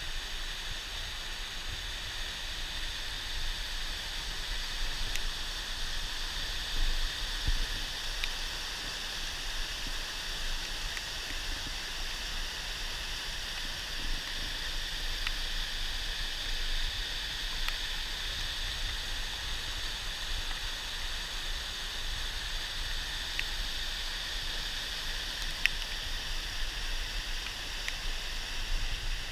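Rocky brook rushing down small cascades and chutes over sandstone ledges: a steady hiss of white water.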